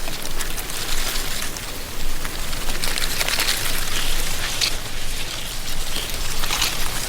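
Wind blowing through a tree canopy, rustling dry autumn leaves in a steady crackling hiss that swells and eases in gusts.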